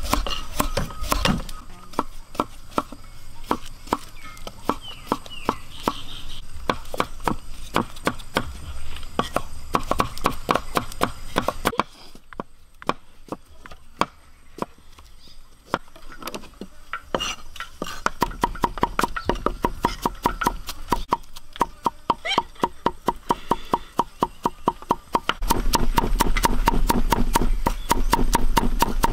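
Knife chopping on a wooden cutting board: a long run of quick, regular chops, a few a second, thinning out about halfway and growing louder and denser near the end.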